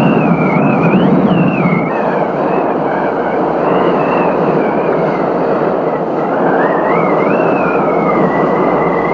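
Strong wind blowing over the helmet camera, a steady rushing with a thin whistling tone that wavers up and down in pitch.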